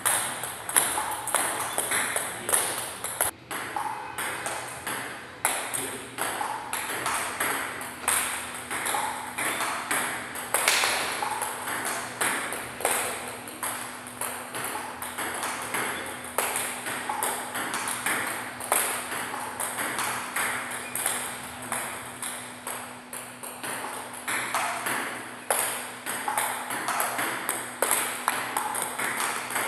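Celluloid-type table tennis balls clicking off the table and the bats in quick succession in a multiball drill, balls fed one after another and returned, a few clicks a second.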